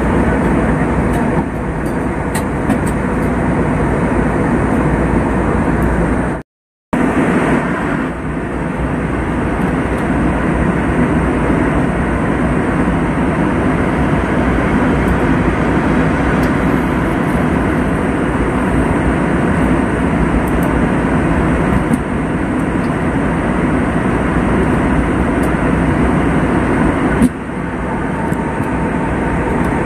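Steady cabin noise of an airliner in cruise flight, heard inside the cabin: a constant rush of engine and airflow noise. It breaks off for about half a second around six seconds in.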